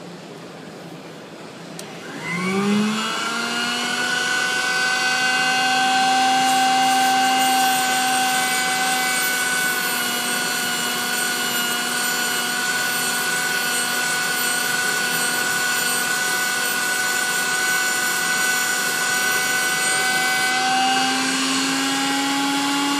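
Piranha 2 diamond-wheel tungsten electrode grinder switched on about two seconds in, its motor spinning up with a rising whine and then running at a steady pitch with a hiss. Near the end the whine steps up slightly in pitch.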